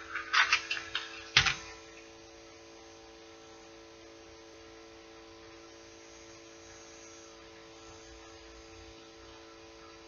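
Brief rustling and clicking as a small package of fishing swivels is handled, ending in one sharp click about a second and a half in. After that there is only a steady faint electrical hum.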